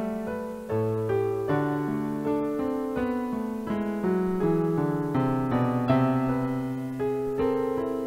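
Background piano music: single notes and chords struck at an unhurried pace, each one ringing and fading before the next.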